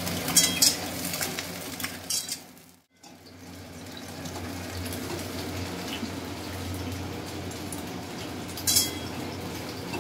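Cauliflower florets frying in a metal kadai on a gas stove, a steady sizzle, with a metal spatula scraping and clinking against the pan a few times. The sound breaks off briefly about three seconds in.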